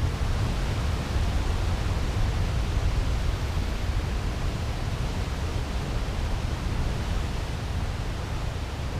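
Steady wind buffeting the microphone, a constant low rumble under an even hiss, with no single event standing out.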